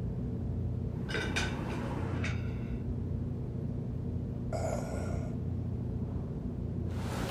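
A man's short breathy gasps and groans, three of them, then a heavy breath out near the end, over a low steady hum.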